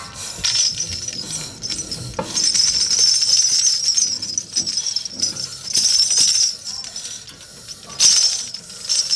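Metallic jingling and rattling with many small clicks, loudest in a long stretch through the middle and again briefly near the end.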